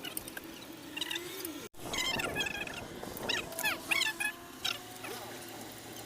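Repeated short, high-pitched squeaky calls from small animals or birds, each falling quickly in pitch, coming at an uneven pace.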